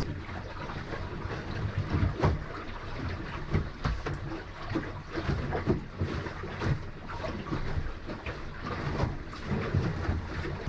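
Water slapping and splashing against the hull of a small sailboat under way, in irregular uneven knocks, over a low rumble.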